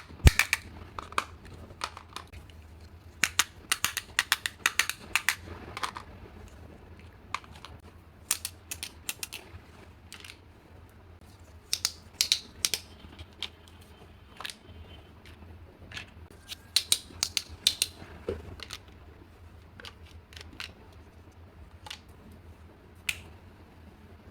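Small plastic toy pieces being handled, with irregular clusters of sharp clicks and taps.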